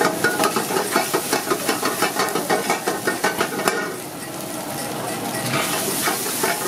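A metal ladle stirs and scrapes quickly against a wok of food frying in hot oil, about four strokes a second. About four seconds in the strokes thin out and the oil's sizzle carries on.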